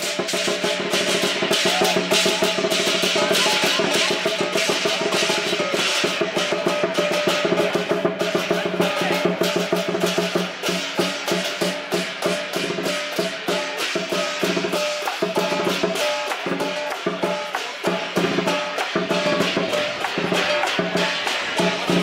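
Lion dance percussion: a big drum beaten in a fast, unbroken rhythm with clashing cymbals ringing over it, accompanying the lions' moves.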